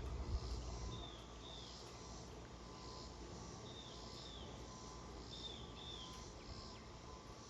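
Faint outdoor chirping: short, high, slightly falling chirps in pairs, repeating every second or two. Under them a low rumble, a little louder for the first second, then steady.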